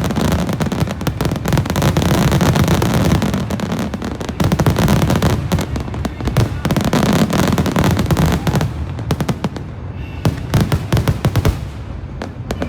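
Fireworks display: a dense run of booms and rapid crackling. It thins out about nine seconds in, and a last flurry of crackles follows.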